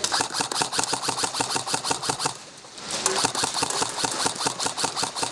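Airsoft rifle firing on full auto: a fast, even run of mechanical clicks, a short pause about two seconds in, then a second long burst.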